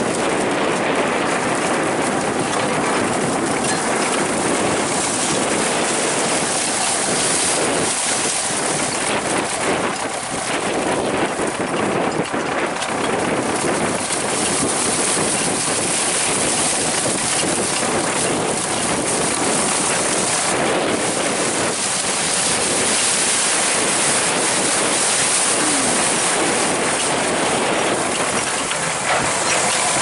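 Wind buffeting the microphone over a wheeled tractor's engine running as it hauls its dump trailer.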